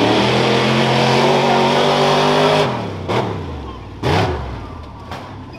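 Off-road race truck engine running hard at high revs, then dropping in pitch and fading about two and a half seconds in as the driver lets off. Two short rev blips follow.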